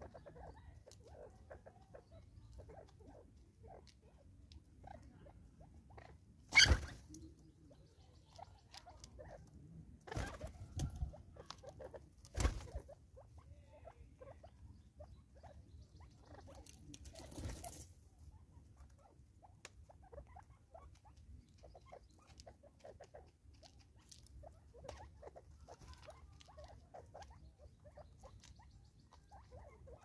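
Spurfowl pecking and scratching at seed on a wooden stump and in a feeder: a run of light taps and scrabbling, with a few sharper knocks, the loudest about six and a half seconds in.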